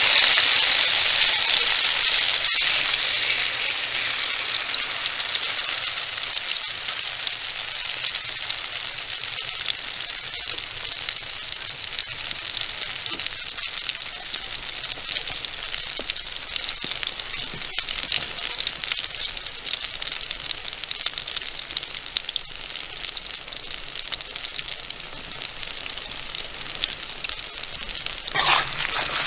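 Beaten duck egg and chopped green vegetables sizzling in hot oil in a wok. The sizzle is loudest in the first few seconds, then settles to a steady frying crackle with a few sharp pops, and swells again just before the end.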